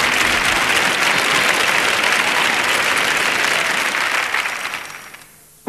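Audience applause, an even clapping that dies away over the last second or so before the music starts.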